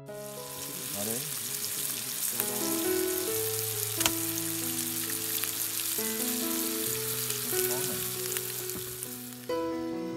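Beef steak sizzling in an oiled frying pan with whole garlic bulbs, with one sharp click about four seconds in; the sizzle cuts off near the end.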